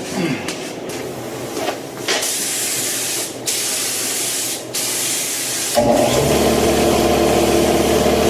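Paint being sprayed onto an air conditioner unit in three hissing bursts with brief pauses between them. About six seconds in it gives way abruptly to a steady machine hum.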